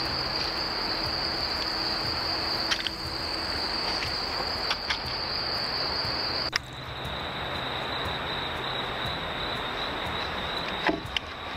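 Crickets trilling in one continuous high, steady tone that drops slightly in pitch about halfway through. A few brief sharp sounds break in, the loudest near the end.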